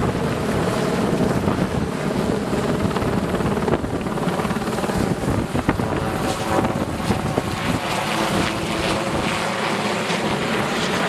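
Heavy-lift helicopter flying overhead and away, its rotor and engines running steadily.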